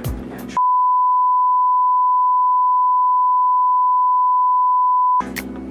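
A loud, steady test-tone beep at one single pitch, the kind played over colour bars, held for about four and a half seconds. Background music with a beat plays briefly before the tone starts and comes back just as it cuts off.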